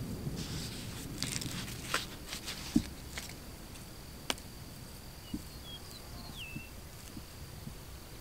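Hands working loose potting soil and handling a black plastic nursery pot while planting rosemary: soft rustling and scraping in the first two seconds, then a few light clicks and taps.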